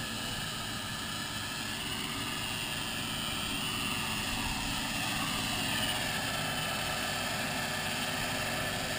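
A handheld electric power tool and the hose-connected dust extractor beside it running steadily while working a large wood slab. The motor's pitch wavers slightly around the middle.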